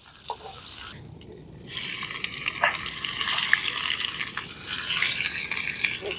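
Fish frying in hot oil in a pan: a fairly quiet sizzle that turns into a much louder, dense sizzle with small pops about a second and a half in, as pieces of fish go into the oil.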